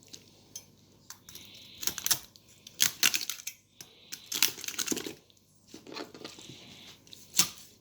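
Knife cutting up a raw whole chicken on a cutting board: a series of sharp knocks and clicks of the blade hitting the board, with soft scraping between the strokes.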